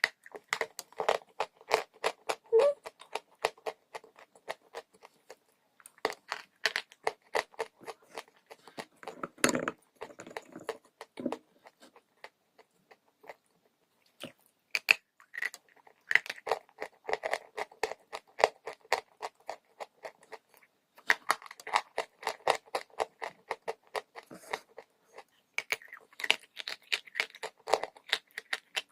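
Dry chalk being crunched: rapid, dense crackling crunches in bursts of a few seconds, separated by short pauses, with one heavier crunch near the middle.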